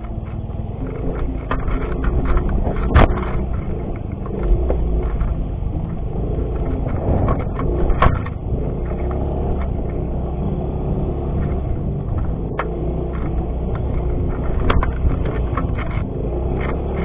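Yamaha X-Ride 125 scooter's single-cylinder engine running steadily as it rides over rough grassland, with sharp knocks and rattles from bumps in the ground, the loudest about three and eight seconds in.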